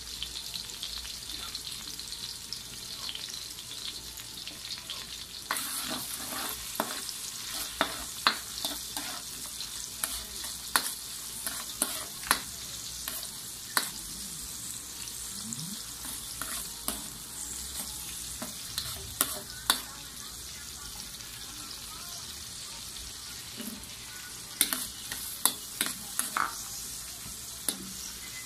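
Vegetables sizzling in oil and sauce in a wok, with a metal ladle stirring and scraping and clinking against the pan. The hiss steps up and irregular sharp clinks of the ladle begin about five seconds in.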